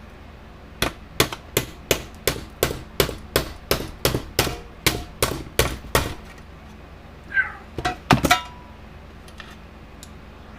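Hammer striking a punch in a steady series of about fifteen sharp metallic blows, roughly three a second, to drive a stuck rod out of an electric fence charger's transformer plates. A few more quick knocks follow a couple of seconds later.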